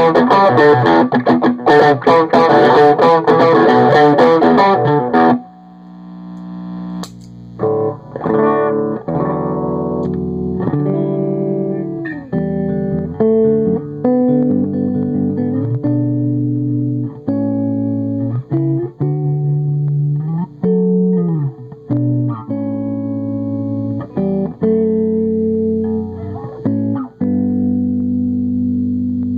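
Electric guitar played through a Fender Tweed Deluxe–style tube amp clone. A dense, bright, driven passage stops abruptly about five seconds in. A cleaner stretch of chords and single notes with a few string bends follows.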